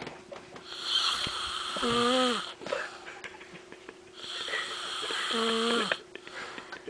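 A person snoring: two breaths about three and a half seconds apart, each a rasping hiss that ends in a short low tone. A faint steady hum runs underneath.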